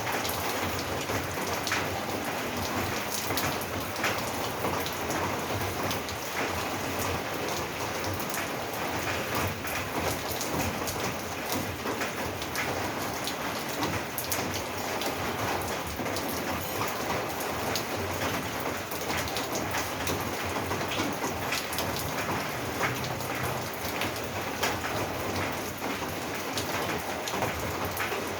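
Steady rain falling on a roof, a dense patter of many drops.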